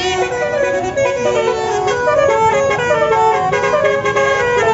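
Bus "telolet" musical horn playing a quick melody, its held horn notes stepping from one pitch to the next several times a second.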